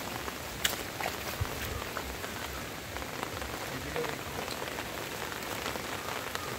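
Heavy steady rain falling on floodwater and plastic-mulched seedling beds, with a few scattered sharp ticks, the loudest about half a second in.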